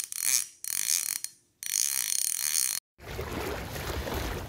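A ratcheting, clicking mechanical sound in three bursts of about a second each, each starting and stopping sharply. About three seconds in it gives way to a steady outdoor wash of wind and water.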